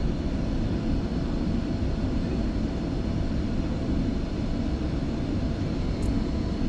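Furnace blower driven by a newly fitted ECM motor running steadily at high cooling speed, the fan and moving air giving a steady low whoosh. A faint tick about six seconds in.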